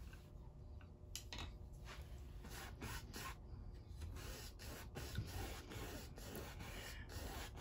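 Bristle paintbrush scrubbing and dabbing acrylic paint onto a stretched canvas, a series of short, irregular scratchy strokes while white snow is laid in.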